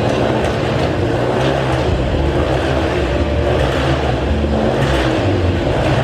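A motor vehicle's engine running and revving, loud and continuous.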